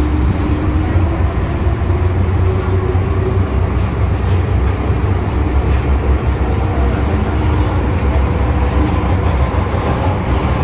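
MTR M-Train electric multiple unit running on the line, heard from inside the car: a steady loud rumble of the train under way. A faint motor whine rises in pitch over the first few seconds.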